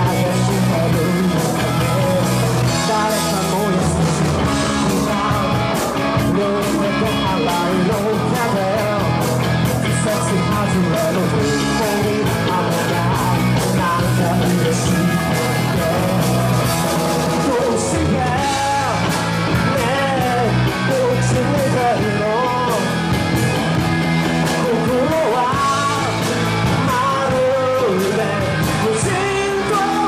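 Live rock band playing: electric guitars, bass guitar and drums, with a man singing lead over them, his voice standing out more in the second half.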